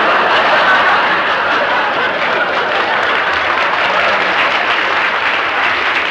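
Studio audience applauding steadily, easing off near the end.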